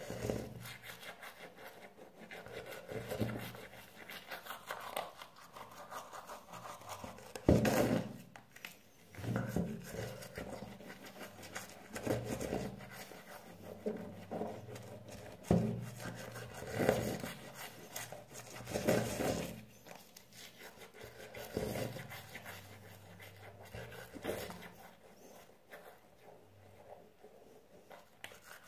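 Manual toothbrush scrubbing teeth: rapid back-and-forth bristle strokes, with louder swells every two seconds or so.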